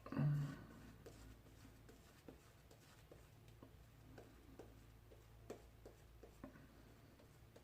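Shaving brush painting lather onto the face: faint soft scratchy brushing with small irregular ticks. A short low pitched sound comes just after the start.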